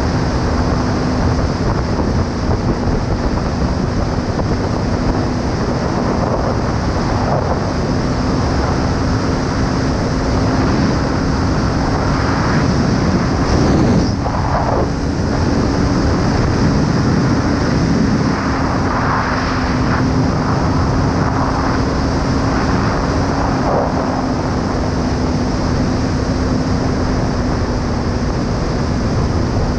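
Kawasaki ER-5's parallel-twin engine running at nearly steady revs while the bike is ridden, with wind rushing over the camera microphone.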